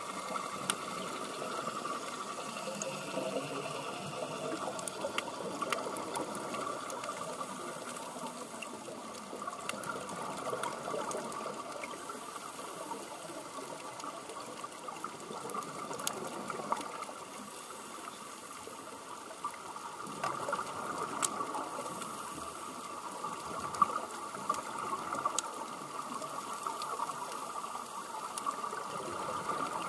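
Underwater sound of scuba divers breathing through their regulators: a steady bubbling hiss from the exhaled bubbles, with scattered sharp clicks.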